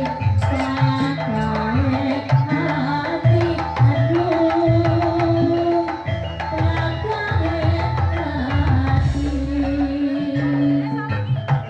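Dolalak music: drums beating a busy, steady rhythm under a held melody line and a moving bass line.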